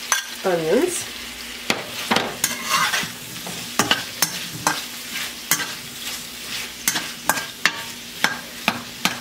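Sweet peppers and onions frying in a little oil in a wok, sizzling steadily, while a metal spatula stirs them with repeated sharp clicks and scrapes against the pan.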